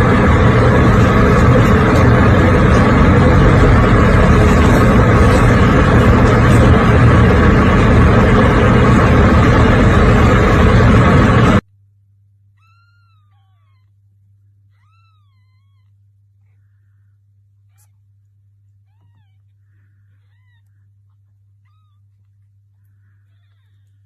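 A loud, steady rumbling noise that cuts off abruptly about halfway through. After it, young kittens mew faintly several times, short rising-and-falling calls, over a low steady hum.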